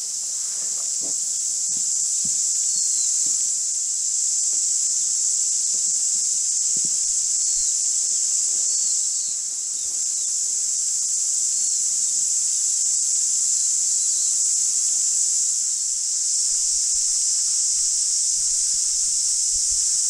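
A steady, loud, high-pitched chorus of cicadas. Footsteps on a grassy track sound softly beneath it in the first several seconds.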